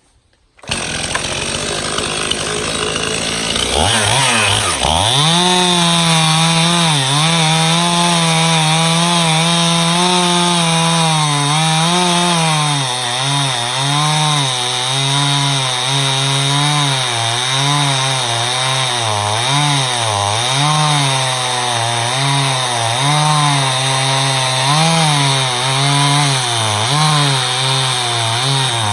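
Stihl MS291 two-stroke chainsaw cutting through a hickory block. The sound starts abruptly about a second in. The engine pitch dips about four seconds in, then keeps wavering up and down as the saw labours in the wood.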